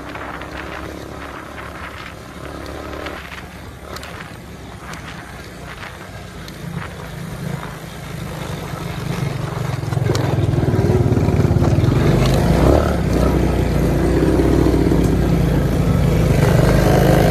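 Four-wheeler (ATV) engine running, getting clearly louder about halfway through and staying loud.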